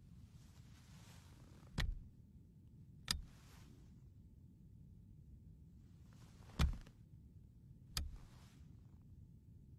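Quiet, tense film sound: a steady low rumble with four sharp clicks at uneven intervals, each paired with a short, soft hiss.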